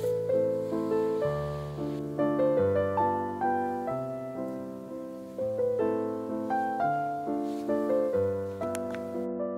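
Background music: a gentle solo piano piece, chords and melody notes struck about twice a second over low bass notes, each note fading after it is struck.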